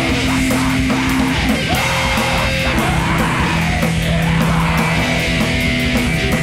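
Loud, heavy rock music from a band recording: distorted guitars and drums with steady cymbal strokes, and a shouted vocal.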